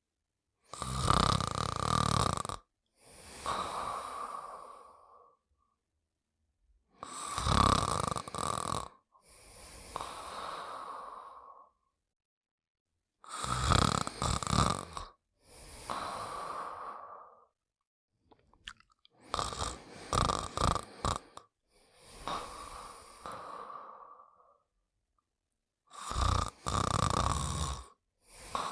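The Pink Panther's snoring: a loud, rasping snore on the breath in, then a softer whistling breath out. The cycle repeats five times, about every six and a half seconds. In the fourth cycle the snore is broken into several short, choppy snorts.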